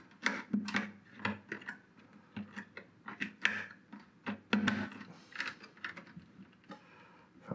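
Irregular small clicks and taps of wiring and plastic connectors being pushed and settled by hand on a preamp circuit board inside its metal chassis.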